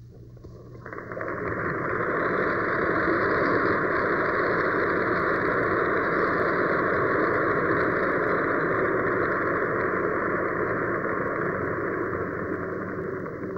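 A loud, steady rushing hiss, like static, that comes in about a second in and fades near the end.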